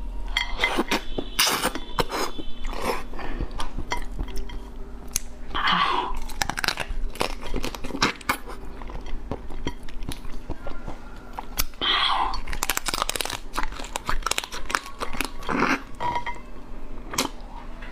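Close-up eating of a soy-marinated raw crab: crab shell cracking and crunching between the teeth with wet chewing, many sharp clicks throughout, and longer wet sucking sounds about 6 and 12 seconds in.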